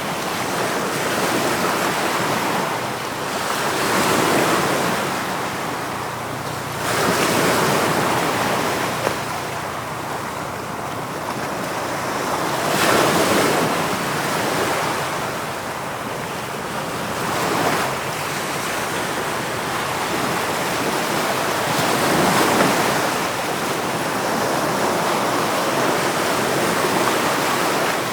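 Ocean waves breaking and washing on the shore: a continuous rush of surf that swells louder every few seconds as each wave comes in.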